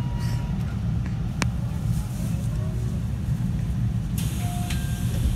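A 313 series electric train running, heard from inside the car: a steady low rumble of wheels and running gear on the rails. A single sharp click comes about a second and a half in, and a hiss starts about four seconds in.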